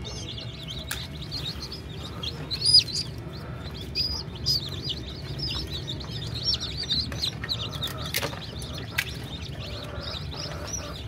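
Many newly hatched Egyptian chicks peeping continuously in short, high cheeps, with a couple of sharp knocks about eight and nine seconds in.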